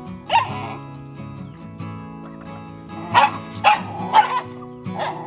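Dogs barking at a shared feeding bowl: one bark near the start, then three in quick succession about three seconds in, over background music.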